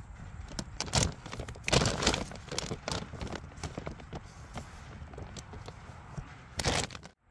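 Irregular rustling, crackling and knocks of hand work in a potato bed, with a few louder knocks about a second in, around two seconds in and near the end. The sound cuts off abruptly just before the end.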